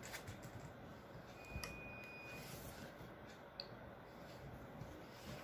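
Quiet room with a few faint, short clicks and taps.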